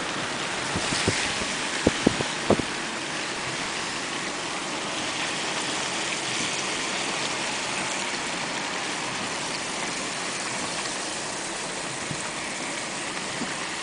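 Steady road and engine noise of a moving car, heard from inside the cabin, with a few sharp knocks in the first three seconds.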